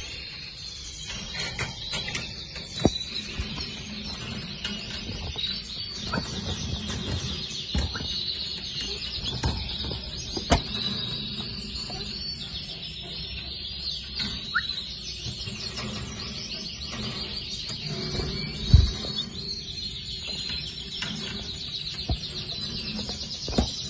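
Canary chicks begging in the nest, a continuous high, rapid cheeping while the hen feeds them. A few sharp knocks break in, the loudest about three-quarters of the way through.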